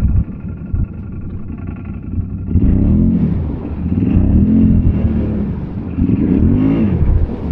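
ATV engine running low for a couple of seconds, then revving hard three times, each rev rising and falling in pitch.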